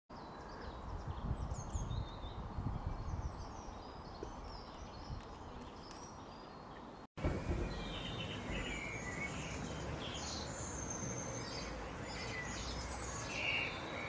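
Outdoor garden ambience: small birds chirping and singing over a low rumble. The sound cuts out for an instant about halfway through and comes back with different birdsong.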